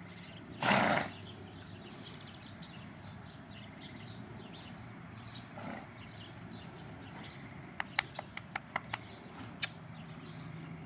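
A foal gives one short, loud snort about a second in. Near the end comes a quick run of sharp clicks, about four a second, of small hooves on a hard floor.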